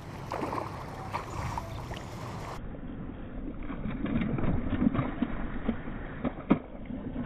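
Water splashing as a hooked snook thrashes and leaps at the surface. The splashes come irregularly and are busiest in the second half.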